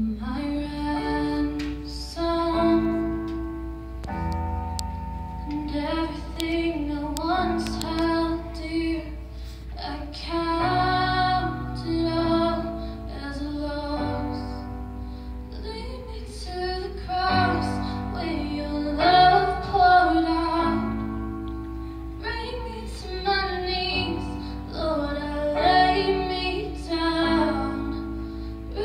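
A woman singing a slow worship song solo, with her own piano accompaniment in sustained chords.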